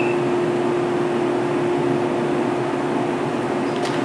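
Steady hum of a standing 115-series electric train's onboard auxiliary equipment: one constant mid-pitched tone over an even fan-like rush. A few faint ticks come near the end.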